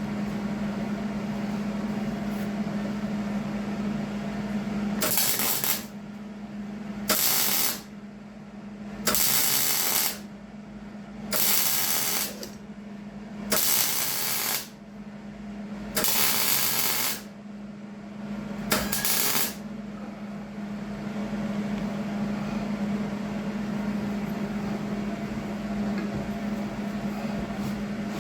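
Gas-shielded wire-feed (MIG) welder laying seven short welds on the steel mower deck, each a burst of arc crackle lasting about a second, spread over some fifteen seconds. A steady low hum runs under them.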